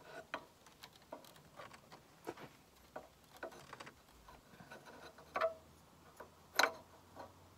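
Scattered light clicks and taps of hand-handled parts as a diverter valve is fitted against the turbocharger of an engine, with two louder knocks in the second half.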